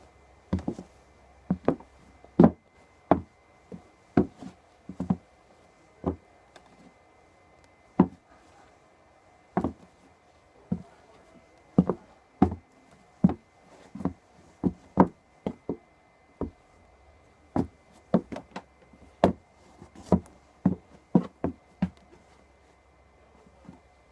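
Footsteps in Nike Foamposite sneakers: a run of short, sharp knocks, about one or two a second at uneven spacing, sometimes in quick pairs.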